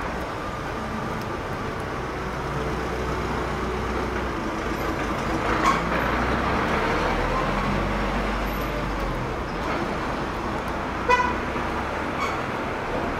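Street traffic noise: a steady rumble of passing vehicles, with two short sharp sounds about six and eleven seconds in.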